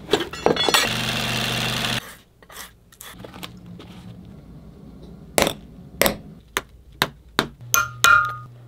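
Hammer striking a metal setting punch to fix lace hooks into a leather hiking-boot upper: about eight sharp taps in the second half, coming faster toward the end, the last ones with a metallic ring. Near the start there is about a second of steady mechanical whirring.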